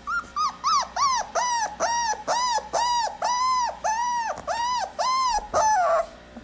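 Puppy whining: a run of about a dozen high, rising-and-falling whines, about two a second, the first few slightly higher in pitch.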